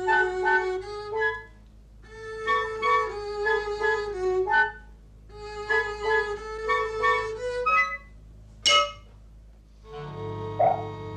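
Cartoon score music: a quick, bouncy melody on bowed strings, played in three short phrases with pauses between them. A single sharp accent comes near nine seconds, then a held chord in the last second.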